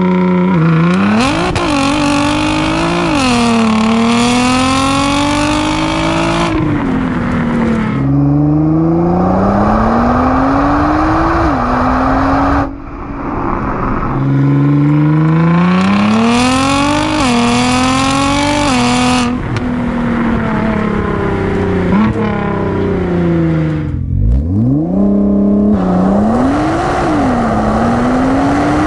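Nissan R35 GT-R's twin-turbo V6 exhaust under hard acceleration in several cut-together runs, the note climbing in pitch and dropping sharply at each upshift. About two-thirds in, the pitch falls away steadily as the car slows, then climbs through the gears again.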